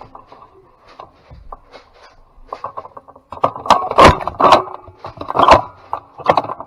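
Scraping, rattling and knocking of handling noise, as of a camera or gear being carried and moved, faint at first and louder with several sharp knocks from about three seconds in.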